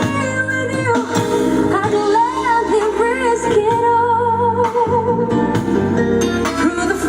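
A song with a lead vocal and instrumental backing, played loud through a 15-inch loudspeaker under test.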